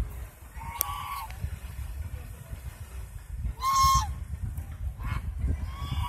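Chinese goose honking: three short honks, about a second in, near the middle (the loudest) and at the end, over a low rumble.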